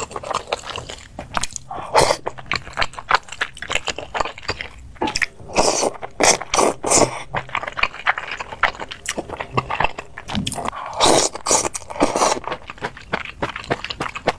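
A person eating close to the microphone: biting and chewing crunchy food, with dense irregular crunches and clicks and louder clusters of crunching now and then.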